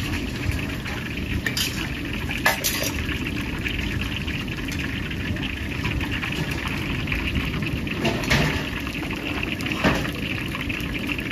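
Food frying in hot oil: a steady sizzle with a few sharp clicks.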